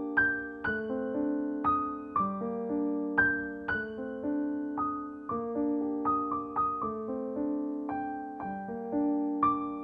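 Background piano music: a calm melody of single struck notes, one or two a second, each fading away before the next over held lower notes.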